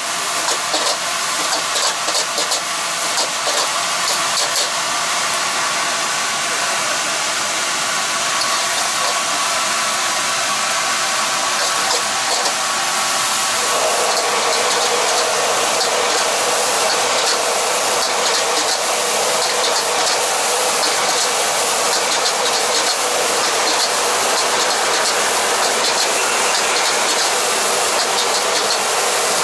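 Fried rice sizzling in a wok over a gas burner, with a metal ladle scraping and clicking against the wok as it is stirred and tossed. About halfway through the hiss grows fuller and louder.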